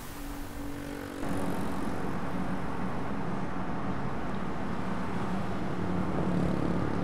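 Steady outdoor background rumble with a low hum, cutting in suddenly about a second in and running on evenly.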